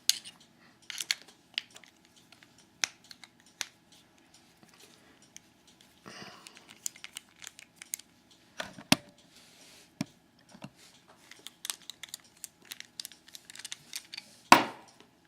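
Small metal clicks and taps from a padlock and hand tools being handled, with a short scraping stretch about six seconds in and a sharp knock near the end.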